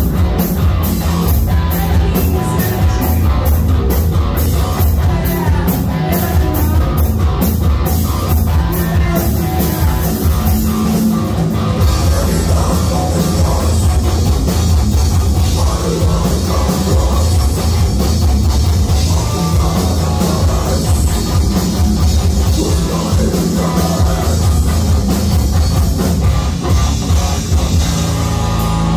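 Live heavy metal band playing loud: drum kit, distorted electric guitar and bass, with vocals. A steady beat of cymbal strikes gives way about twelve seconds in to a constant cymbal wash over heavy bass.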